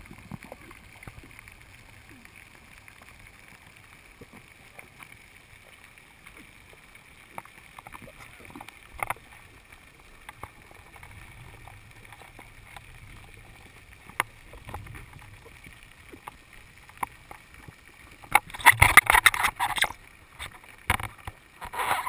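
Underwater ambience through a camera's housing: a faint steady hiss with scattered small clicks. Near the end come a couple of seconds of loud crackling rushes, then another short one.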